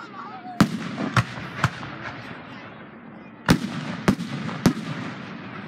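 Aerial fireworks shells bursting in two quick sets of three sharp bangs, the sets about three seconds apart, each bang trailing a short low echo.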